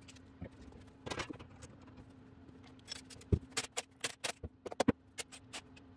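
Scattered metallic clicks and clinks of hand tools being worked against a bare cast engine block, with one heavier knock a little over three seconds in and a quick run of clicks after it, over a faint steady hum.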